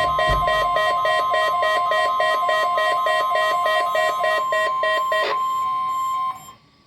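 NOAA Weather Radio warning alarm tone, a steady single pitch, sounding for the weekly test, with a rapidly repeating beep over it. About five seconds in there is a click and the beeping stops; the steady tone runs about a second longer, then cuts off to faint radio hiss.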